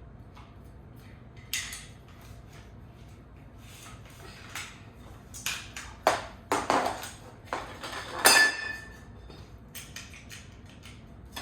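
Small metal hardware, screws and tool bits, clinking and rattling as they are picked through and set down: a string of sharp clinks, several with a short metallic ring, the loudest about eight seconds in.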